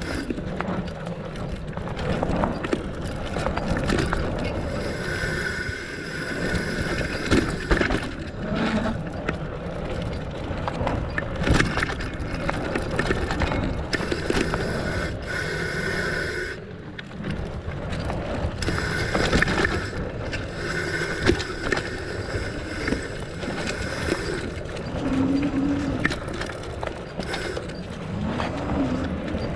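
Fatbike riding dirt singletrack: wide tyres rolling and rumbling over the ground, with knocks and rattles from bumps. In stretches of a few seconds a steady buzz comes in, the rear hub's freewheel ratchet clicking as the bike coasts.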